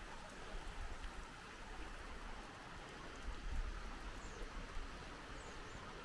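Wind buffeting the microphone in uneven low gusts, over a steady rushing hiss.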